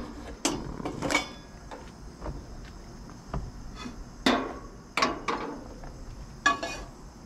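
Metal clanks and knocks, about six of them spaced over several seconds, each with a brief ring: a nonstick frying pan and grill parts being handled on a gas grill's side burner.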